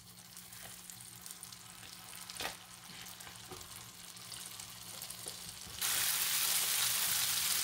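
Butter sizzling in a pan of hot melted sugar (caramel) as it melts into it, faint crackling at first with a few light taps, then a sudden loud, steady sizzle about six seconds in as the mixture foams up and is stirred with a wooden spatula.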